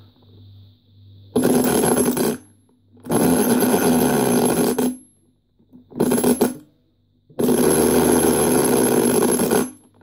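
Unpowered drivetrain of a KM brushless X2 RC car, its spur and pinion gears spinning as the car is pushed by hand across a hard floor: a loud metallic whirring rattle in four separate pushes, the last the longest. Not exactly whisper quiet.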